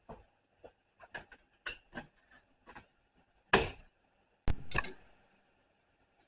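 Clicks, taps and short scrapes of a freshly 3D-printed plastic part being cut and pried off the printer bed. A louder scrape comes about three and a half seconds in, and a sharp snap about a second later.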